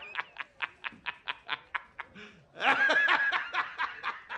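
A person snickering in a rapid run of short, breathy bursts, about five a second, breaking into a louder, higher-pitched laugh about two and a half seconds in.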